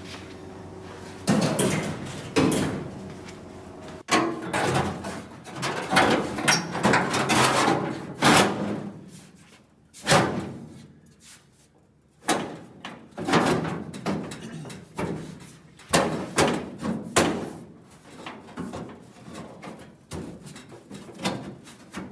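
A replacement sheet-metal luggage shelf panel clanking, knocking and scraping against a 1965 VW Beetle's rear body as it is test-fitted, in irregular bursts with a short lull about halfway through.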